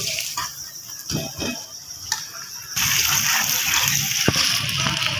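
Sliced onions and ginger-garlic paste frying in hot ghee in an aluminium pot, stirred with a metal ladle that scrapes and taps the pot. About three seconds in the sizzling gets suddenly louder and stays as a steady hiss.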